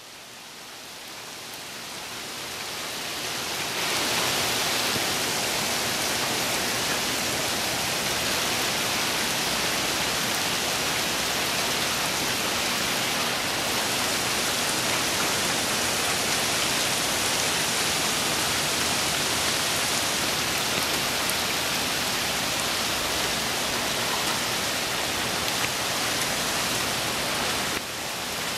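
Heavy rain shower pouring down onto canal water, a dense, even hiss of countless drops. It builds over the first four seconds, then holds steady.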